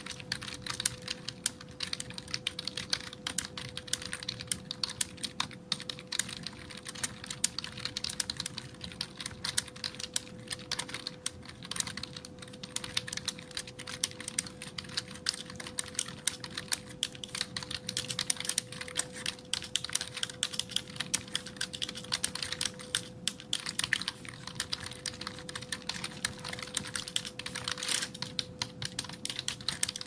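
Continuous fast typing on a PC keyboard, keys clicking in quick, uneven runs without a break.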